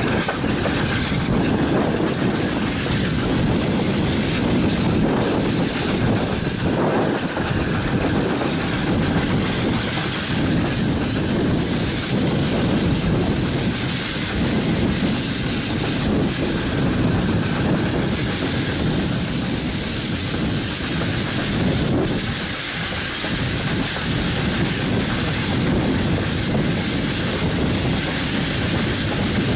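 A train hauled by a Hunslet Austerity 0-6-0 saddle-tank steam locomotive running along the line, heard from an open carriage window. The steady noise of the locomotive and of the wheels on the rails mixes with wind rushing over the microphone.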